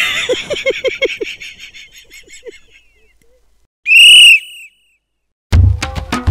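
Edited-in comedy sound effects: an echoing effect that repeats and fades away over about three seconds, then a short, loud whistle tone that rises and falls about four seconds in. Music with a beat starts just before the end.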